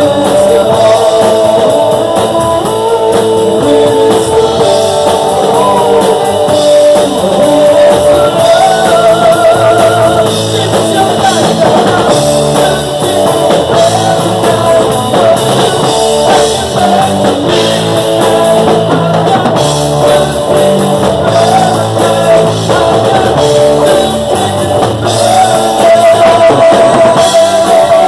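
Live band playing a rock song: a man sings with wavering, held notes over guitar and drums, loud throughout.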